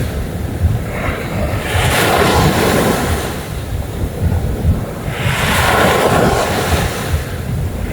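Sea waves breaking and washing up a beach, the surf swelling twice, with wind buffeting the microphone.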